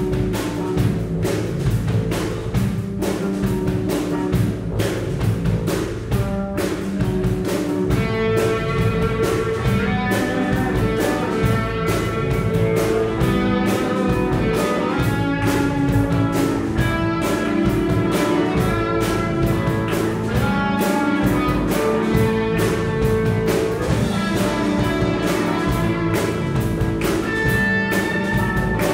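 Live band playing dance music through a PA: a drum kit keeps a steady beat under bass and electric guitar, and a higher melody line joins about eight seconds in.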